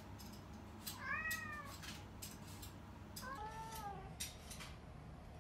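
Domestic cat meowing twice, begging for a treat; each meow rises then falls in pitch, and the second, about two seconds after the first, is lower.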